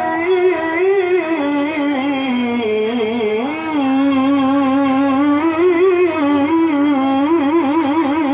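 A qari's solo voice reciting the Quran in melodic tilawah style into a microphone: long sustained notes that glide between pitches, with a rapid trilling ornament near the end.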